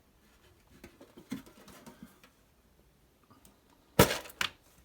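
Faint handling rustles and light taps, then two sharp clacks close together near the end as the metal lid of a trading-card tin is pulled off.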